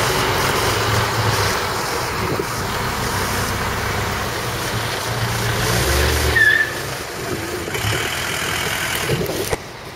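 Heavy low-loader truck's diesel engine running as it passes close by at low speed, with road traffic noise and a brief squeak about two-thirds of the way in. The sound drops off abruptly near the end.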